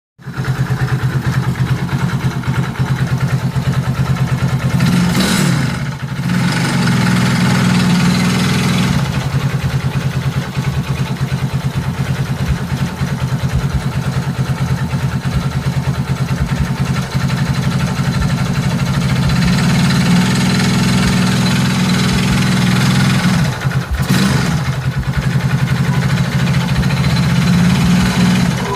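Vehicle engine idling with a fast, even pulse, revved up and back down briefly twice, about five seconds in and again near the end. The owner reports an abnormal noise from the engine when accelerating.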